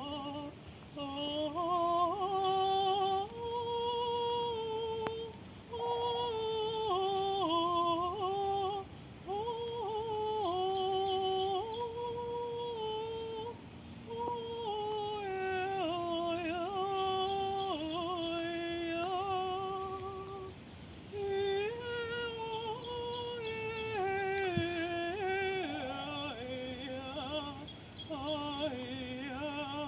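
A woman singing wordless vocal tones, holding long notes that step up and down in pitch, with short breaths between phrases.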